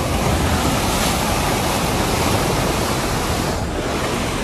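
Fast-flowing mountain stream rushing, a loud steady noise of running water.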